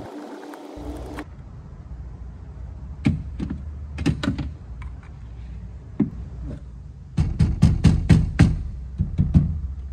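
Sharp knocks and clicks as a car door speaker is worked loose and pulled out of the metal inner door panel, scattered at first, then a quick run of about eight knocks near the end. A brief buzz at the very start.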